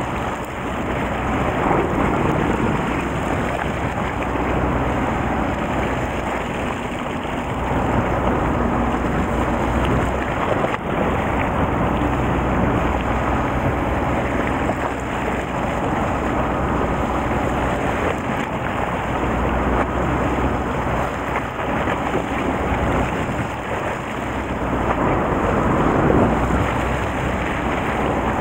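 Wind buffeting the microphone and choppy sea water washing against the side of a fishing boat, over a low steady hum.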